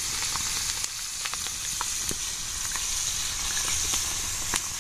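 Oil sizzling steadily in a frying pan over a wood fire as the sambal ingredients fry. Scattered small pops come through, and a wooden spatula stirs the pan near the end.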